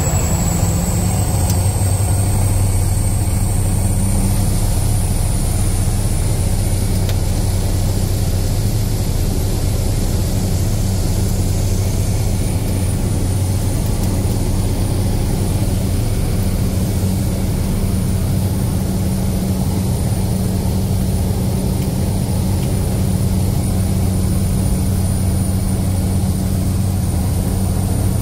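Single-engine floatplane's turboprop and propeller running steadily, heard from inside the cabin while the plane taxis on the water: a constant low drone with a thin high whine that rises slightly in the first few seconds, then holds.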